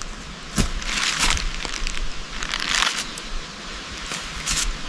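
Dry leaves and foliage rustling and crunching, with several louder crunches at irregular moments over a steady rustling bed.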